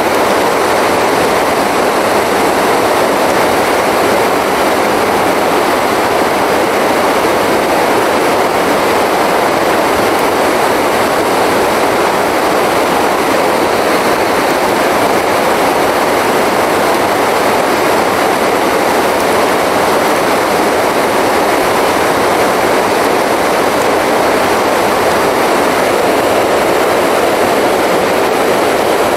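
Steady rushing of a fast river running over rocks and rapids.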